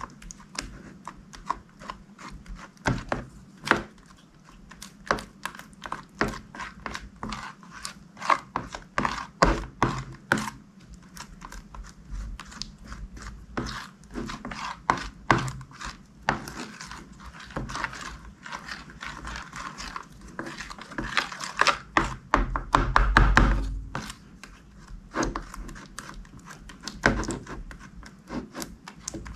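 Slime being stretched, folded and squished, giving rapid wet clicks and pops. A denser, fuller squishing stretch comes about three quarters of the way through.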